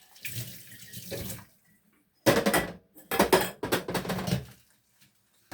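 Tap water running and splashing into a sink over dishes being washed by hand: softer at first, then loud bursts of spray from about two seconds in.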